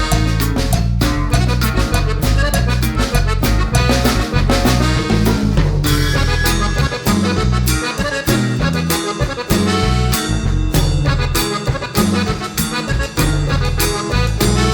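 Upbeat background music with a steady beat, a bass line and an accordion-like lead in a Latin dance style.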